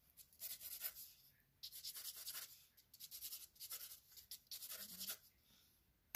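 Faint pencil scratching on paper in several quick runs of short strokes as lines are sketched, stopping about a second before the end.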